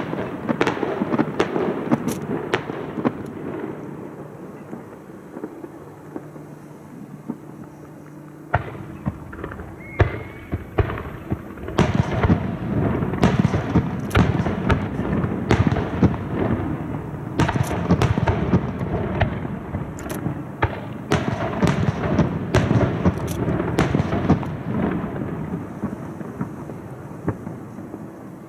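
Aerial fireworks bursting in quick succession: sharp bangs over a rolling rumble and crackle. The bangs thin out for a few seconds about a fifth of the way in, come thick again through the middle, and die away near the end.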